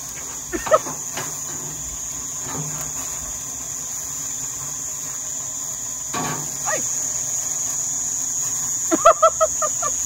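Steady high-pitched chirring of insects, with a quick run of short pitched calls about nine seconds in.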